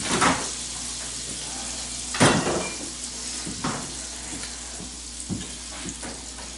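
Pieces of beef tongue sizzling in butter in a frying pan, a steady frying hiss. A few knocks and clinks of kitchen things being handled cut in, the loudest about two seconds in.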